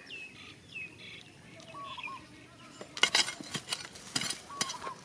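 Iron digging tool scraping and knocking through stony soil, in two clusters of short strokes about three and four seconds in. Short chirping bird calls sound behind it.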